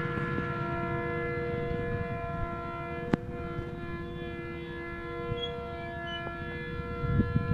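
Pakistan Railways GMCU-15 diesel locomotive horn sounding one long, steady multi-note chord. A low rumble starts to build near the end.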